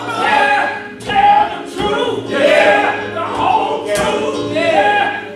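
A choir singing a gospel song over a steady low accompaniment, with a few sharp beats.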